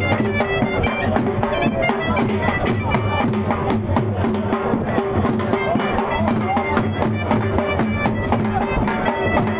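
Pashtun attan dance music: a reedy double-reed pipe, likely a surnai, playing a melody over steady held tones, driven by continuous dhol drumming.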